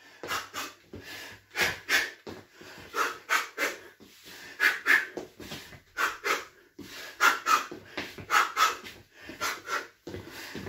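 A man's short, sharp breaths out through the mouth, in quick groups of two or three about every second, in time with jab-cross punches, with heavy breathing from the exertion in between.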